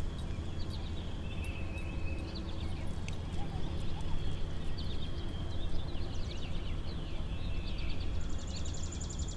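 Outdoor ambience of small birds chirping and calling over a steady low rumble, with a fast high trill near the end.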